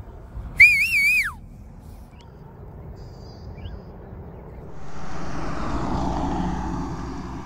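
One loud whistle about half a second in, wavering in pitch and then sliding down, lasting under a second. From about five seconds in, a broad rush of vehicle noise swells up and slowly fades.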